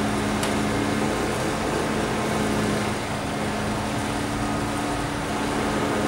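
Steady engine hum of the tree crew's idling work machinery, with the noise of cars passing on the street and a brief click about half a second in.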